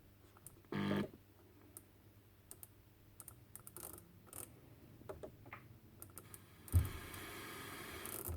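Small clicks of a jobsite radio's buttons and casing being handled as the newly repaired set is switched on and tried, with one short beep about a second in. Near the end a knock, then a low steady hiss.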